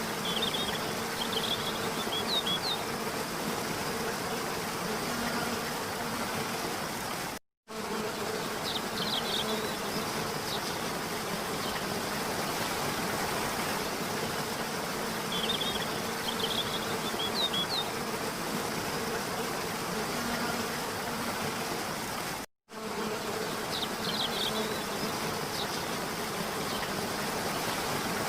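Steady rush of a waterfall with a faint steady buzz, and clusters of short high chirps that come back about every fifteen seconds. The sound cuts out for an instant twice, about seven and twenty-two seconds in.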